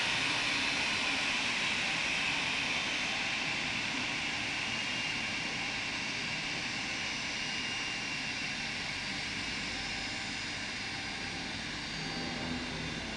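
Airbus A319 jet engines running at idle as the airliner taxis in: a steady high whine over a rushing roar that slowly grows quieter.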